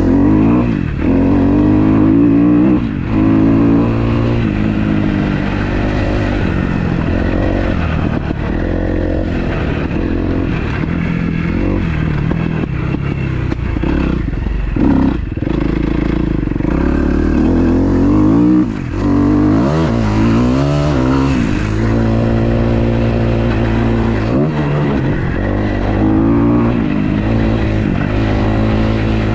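2012 Kawasaki KX250F's fuel-injected four-stroke single-cylinder engine being ridden hard, revving up and dropping back over and over as it climbs through the gears and shuts off for corners.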